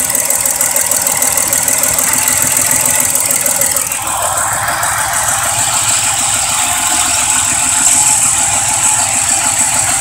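Chrysler 2.7 L V6 idling rough with a misfire on cylinder 6, heard close up at the engine. About four seconds in, the engine note changes slightly as the ignition coil connector on a healthy cylinder is unplugged and that cylinder stops firing.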